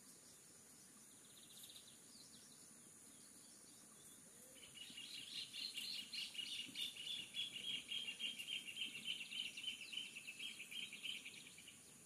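A bird singing a long, rapid chattering song of many quick high notes, starting about four and a half seconds in and running for some seven seconds before fading, after a short call a second and a half in.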